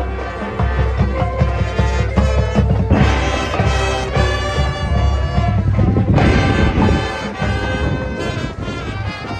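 Marching band playing, with brass carrying the melody over drums; the horns swell louder about three seconds in and again about six seconds in.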